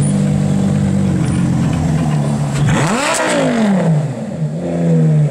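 Lamborghini Gallardo V10 with a Quicksilver exhaust running at low revs, blipped once about halfway through so its pitch rises sharply and falls back. It then settles into a steady low note as the car pulls away.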